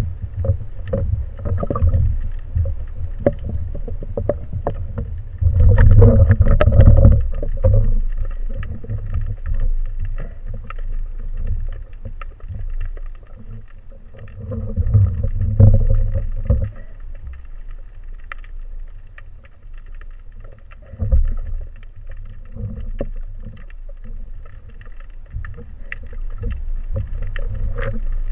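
Underwater sound picked up by a camera in its housing: a steady low rumble of moving water, with many faint scattered clicks and louder surges about six and fifteen seconds in.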